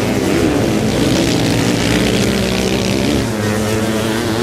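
Several motocross racing engines running together on a dirt track, their pitch stepping up and down as the riders rev and shift gears.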